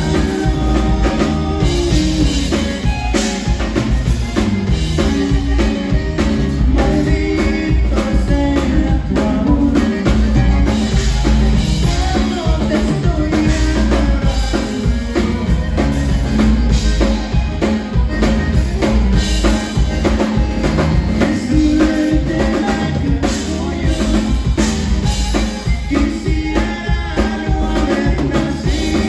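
Live conjunto band playing: button accordion, bajo sexto, electric bass and drum kit, with a steady drum beat.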